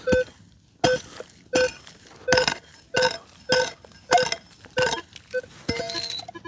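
Digging with a metal hand tool into soil, in steady strokes about every two-thirds of a second, each stroke clinking with a short metallic ring, to unearth a metal-detector target.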